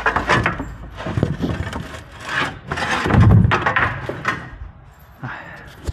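Wooden boards being handled, knocked and scraped against a wooden nest box, with a heavy thump about three seconds in.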